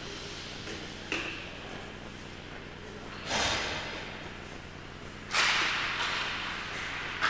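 A sharp knock about a second in, then two longer crashing noises, about three and five seconds in, each dying away over a second or so in a reverberant hall, over a steady low hum.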